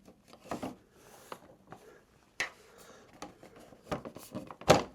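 Handling noise as motorcycle body panel parts are fitted into place: a few scattered clicks and knocks, the loudest near the end.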